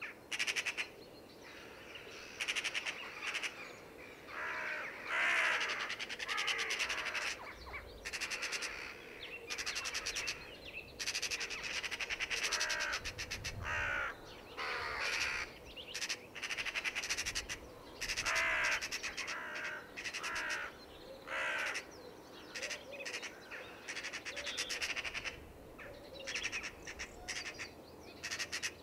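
Corvids calling: a long series of harsh, rasping crow caws in short runs, often less than a second apart.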